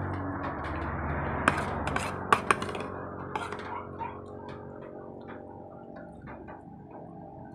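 Sounds of eating from a plastic bowl: a metal spoon clicks sharply against the bowl a few times between about one and a half and two and a half seconds in, over mouth noises of eating rice and soup.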